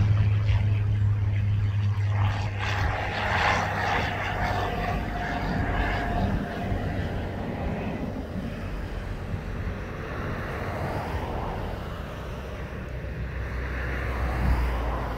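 Single-engine light aircraft taking off at full power: a steady engine and propeller drone, loud as it lifts off and fading as it climbs away.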